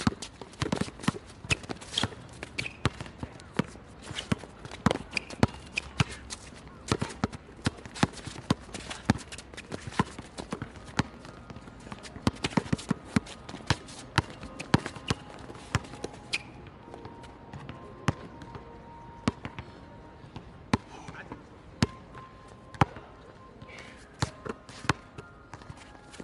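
Basketball dribbled on a hard outdoor court: a run of sharp, irregular bounces, some loud, as the ball handler works against a defender.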